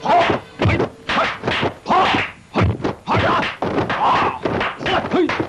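Dubbed kung fu punch and kick sound effects: a rapid series of sharp whacks and thuds, about two a second.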